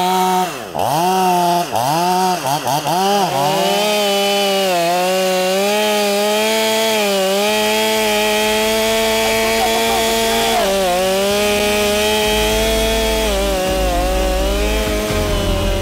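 Two-stroke chainsaw: a few quick throttle blips, its pitch dipping and rising, then held at high revs as it cuts into the tree trunk, with one brief dip in pitch about ten and a half seconds in. This is the start of the felling cut.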